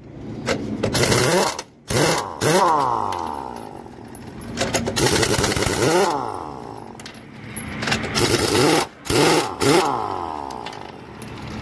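Pneumatic impact wrench on a truck wheel's lug nuts, run in several short bursts of hammering, each spinning up and winding down.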